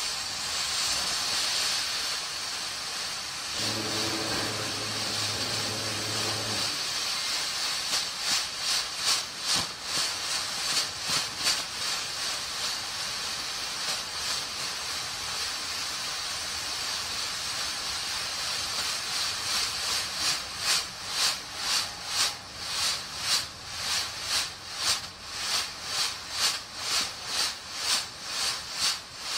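Golden Tiger GT124 blue smoke grenade burning with a steady hiss as it pours out smoke; from about eight seconds in, the hiss swells and dips in quick pulses, about two a second. A low hum sounds for about three seconds near the start.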